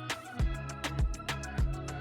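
Background music with a steady beat of drum hits under sustained instrument notes.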